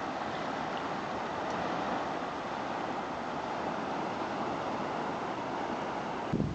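Steady rushing of river rapids, an even roar of white water, broken by an abrupt change near the end.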